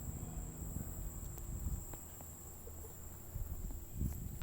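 Crickets trilling steadily and high-pitched over a low rumble, with a few faint clicks and a soft thump near the end.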